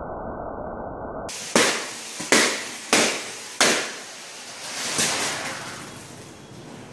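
Four sharp balloon pops about two-thirds of a second apart as red rubber balloons burst, after a dull steady rushing noise that cuts off about a second in; a softer swell of rushing noise follows.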